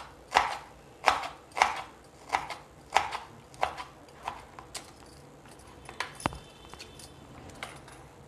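Serrated kitchen knife chopping banana blossom florets finely on a wooden cutting board, a sharp chop every half second or so. The chopping stops about five seconds in, followed by a few lighter knocks and clicks.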